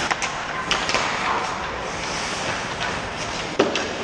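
Ice hockey play on a rink: a steady scraping hiss of skates on ice with several sharp clacks of sticks and puck, the loudest about three and a half seconds in.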